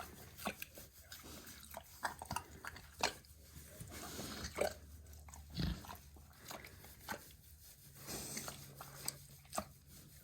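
Kunekune pig making irregular clicking, smacking mouth noises, with one heavier gulp-like thump about halfway through; the owner thinks she sucked down a piece of alfalfa and is struggling to bring it back up.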